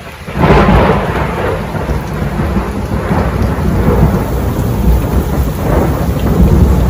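Thunder rumbling over steady rain, swelling loud about half a second in and again near the end.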